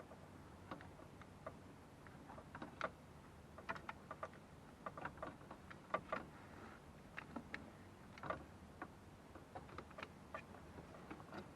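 Scattered light clicks and taps at an irregular pace, from small plastic dash parts and clips being handled and fitted.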